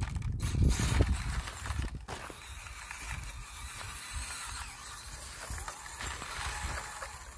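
A 1/24-scale Axial SCX24 crawler with a brushless motor and RCAWD transmission driving, its drivetrain gears whirring steadily, with a few low knocks in the first two seconds.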